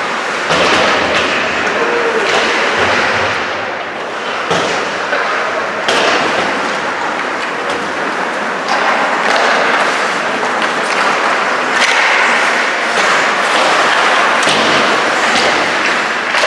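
Ice hockey in play: a continuous scraping hiss of skate blades on the ice, with scattered sharp knocks and thuds of sticks and puck against the ice and boards.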